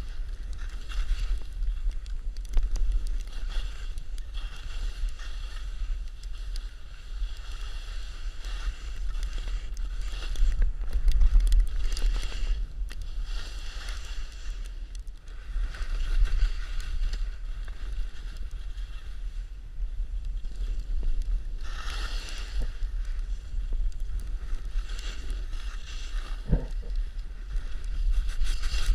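Skis sliding and scraping over snow on a downhill run, a hiss that swells and eases every few seconds, with wind buffeting the microphone as a steady low rumble.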